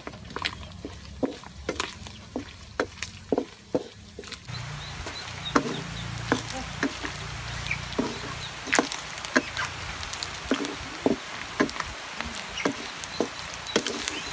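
Wooden spatula clacking and scraping against a steel wok while stirring diced meat frying in oil, a sharp knock every half second or so. The frying sizzle grows louder about four seconds in.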